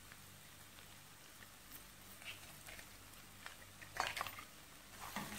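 Egg cooking in a nonstick frying pan on a gas stove, giving faint, scattered crackles over a steady low hum. About four seconds in there is a short clatter of clicks, the loudest moment.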